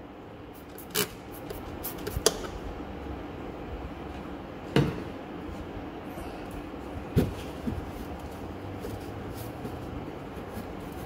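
Scattered knocks and clicks, about five in all, as wiring and a plastic connector are pushed by hand into a hole in a Jeep JL's steel frame rail.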